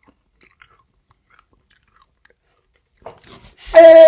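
Faint small clicks and crunches of hard candy being chewed, then near the end a short, loud vocal sound from a child.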